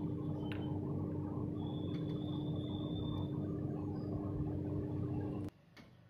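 Steady low hum with one faint steady tone in it, cutting off suddenly about five and a half seconds in. A few faint clicks sound over it.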